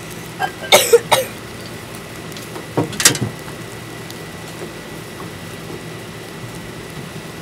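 Plastic zip-top bag crinkling and a glass measuring cup knocking in the first few seconds, then water being poured from the cup into the bag, a faint trickle.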